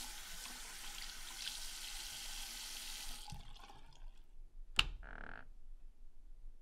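Bathroom sink tap running, water splashing into the basin, then shut off about three seconds in. A sharp click follows a second and a half later, then a brief high tone.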